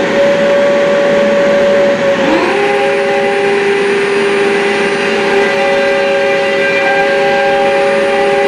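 An electric router's motor running at full speed with a steady high whine, joined about two seconds in by a second high-speed motor that winds up and settles into its own steady whine, the dust extractor on the router's hose.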